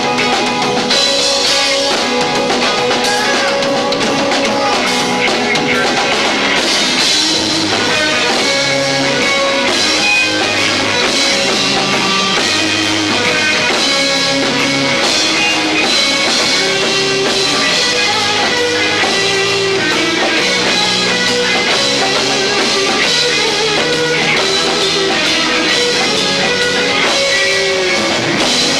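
Live rock band playing a song, drum kits and electric guitar over a moving bass line, recorded low-fi through a 1990s camcorder microphone.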